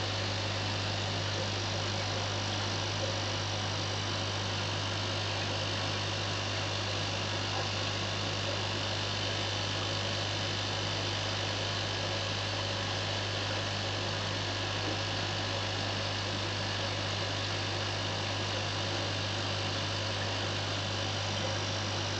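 Aquarium equipment running steadily, an air pump driving a stream of bubbles: a constant low hum with an even hiss over it.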